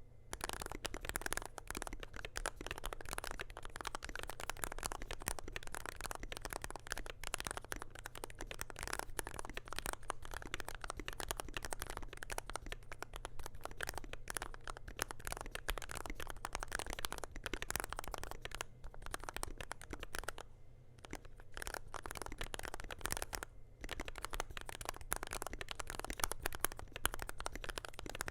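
Fast, continuous typing on a DrunkDeer A75 PRO keyboard with an aluminium case, stainless steel plate, lubed RAESHA magnetic switches and Cherry-profile PBT keycaps: dense, overlapping key clacks with a short pause about two-thirds of the way through.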